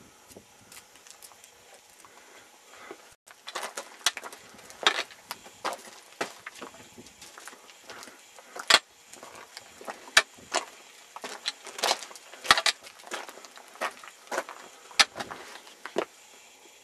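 Footsteps crunching on the loose stones and gravel of a rocky mountain path: irregular sharp crunches, roughly two a second, starting about three seconds in.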